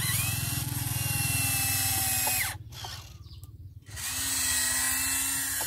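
Volvo RC model excavator's electric motors whining as the arm and bucket move, in two runs: each starts with a short rise in pitch and then holds steady, with a break of about a second and a half a little over two seconds in.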